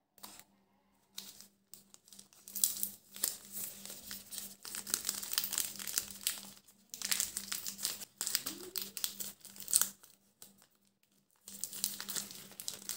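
Plastic wafer-bar wrappers crinkling and rustling as they are handled, in crackly bursts with short pauses and a longer lull about ten seconds in.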